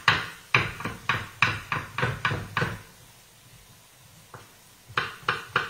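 Kitchen knife chopping zucchini on a wooden cutting board: a quick run of sharp knocks, about three or four a second. The chopping pauses for about two seconds past the middle, then starts again near the end.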